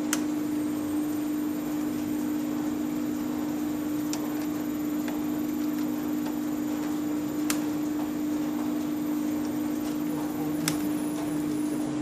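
Steady electrical hum from a large washing machine's control cabinet, one even tone over a faint mechanical whir. Four sharp, thin clicks a few seconds apart are a screwdriver touching metal terminals.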